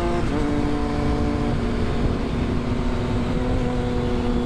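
Triumph Street Triple 675 inline three-cylinder engine running steadily at motorway cruise, its pitch dropping a step just after the start. Heavy wind rumble on the microphone lies under it.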